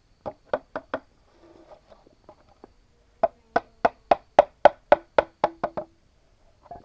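Hammering on bamboo: four strikes near the start, then a run of about ten strikes at about four a second, some leaving a short hollow ring.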